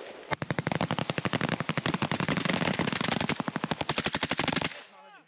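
Kalashnikov rifles firing rapidly on automatic, about ten sharp shots a second for some four seconds, stopping suddenly near the end.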